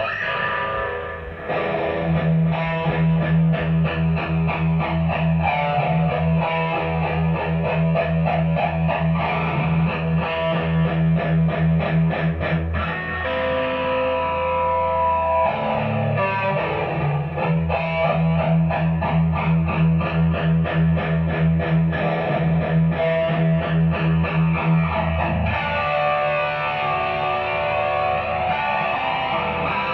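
Mexican-made Fender Stratocaster electric guitar played through a Marshall DSL40C valve combo amp: a rhythmic riff over steady repeated low notes, the figure changing about halfway through and again near the end.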